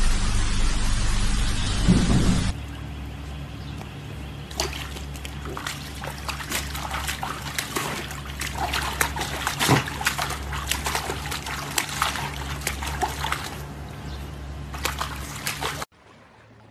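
A loud steady hiss cuts off about two and a half seconds in. Then swimming-pool water splashes and sloshes in a run of quick small splashes as a golden retriever puppy swims at the pool's edge and an adult golden retriever reaches in after it, dropping to much quieter sound near the end.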